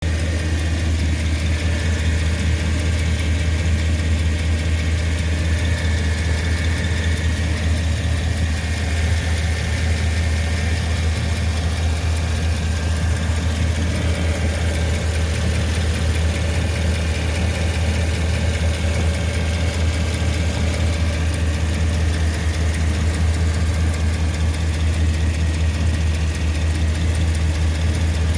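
2009 Chevy Silverado 2500HD's 6.0-litre V8 idling steadily with a tick, misfiring on cylinder 5. The owner traced the tick to a stuck exhaust lifter on cylinder 5 and a bad exhaust flange gasket.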